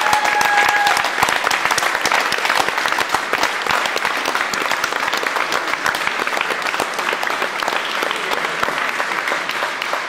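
A crowd applauding, many hands clapping densely and steadily, easing slightly toward the end. A short held tone sounds over the clapping in the first second.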